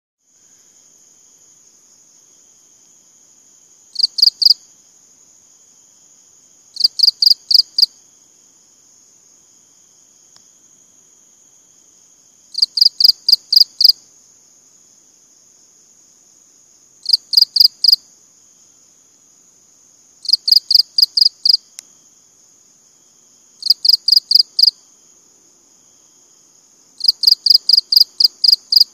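Cricket chirping in loud bursts of rapid pulses, seven bursts in all, one every three to four seconds. Beneath them runs a steady, high, thin trill.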